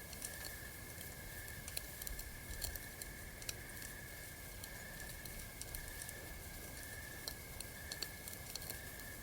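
Campfire crackling, with frequent irregular sharp pops and snaps, over a steady high trill of night insects.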